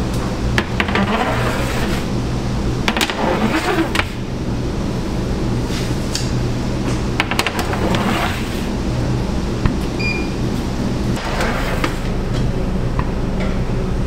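Metal sheet trays of bagels scraping and clanking against the stainless-steel deck of a bakery oven as they are slid in and out, in a series of irregular knocks and scrapes. Under them runs a steady low mechanical hum, and there is a brief high ping about ten seconds in.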